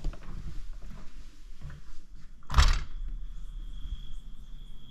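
A window being opened, a short loud noise about halfway through. Right after it, a steady high chirring of crickets comes in through the open window and carries on.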